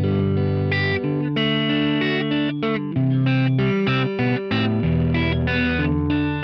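Telecaster-style electric guitar played through an amp with some overdrive, strumming chords and picking notes that change every half second or so. It is a pickup tone demo.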